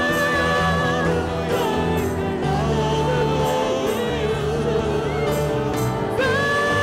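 A woman sings a worship song into a microphone over instrumental backing, holding long sustained notes.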